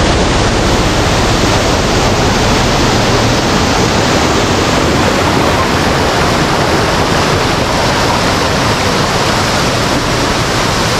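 Roadside waterfall: falling water pouring steadily, a loud, even rush of noise.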